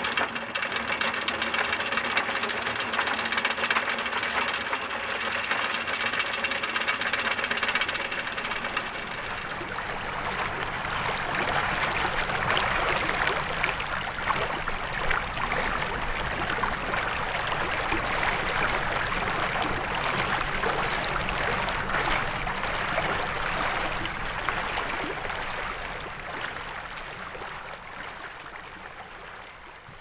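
Anchor gear on a Hunter 41 sailboat being worked: a motor hum with steady tones and mechanical clatter for about nine seconds, typical of an electric anchor windlass with its chain. After that the tones drop away, leaving a dense rattling noise that fades out near the end.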